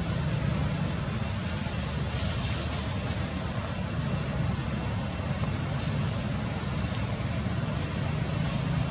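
Steady outdoor background noise with a deep rumble and a hiss over it, holding level throughout, with no distinct calls.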